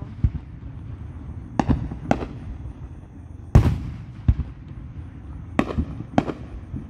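Aerial fireworks shells bursting: a string of about seven sharp booms at uneven intervals over a steady low noise, the loudest about three and a half seconds in.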